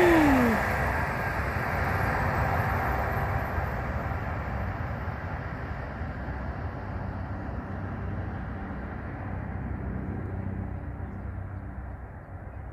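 Jakarta–Bandung high-speed electric multiple unit (KCIC400AF) running past and away: a rushing noise that fades steadily over several seconds as the train recedes, with a brief falling tone at the very start.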